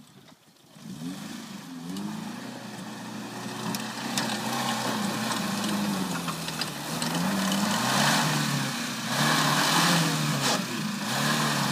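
Suzuki Samurai's small carbureted engine revving up and down as the 4x4 works through deep sand, an engine the owner calls too weak for the job. Almost nothing is heard for about the first second, then the engine picks up and keeps rising and falling in pitch, with a rushing hiss over it in the later seconds.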